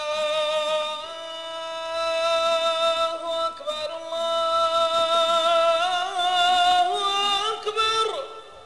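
A solo voice singing long held, drawn-out notes in a chant-like melody, with quick wavering ornaments near the end, breaking off a little after eight seconds.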